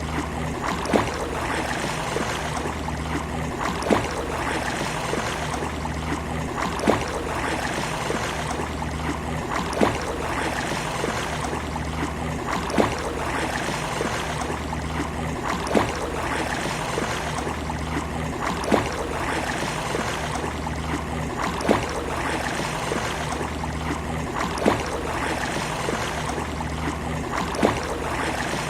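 Sea waves washing on a beach in a steady, even wash. A short sharp slap comes about every three seconds.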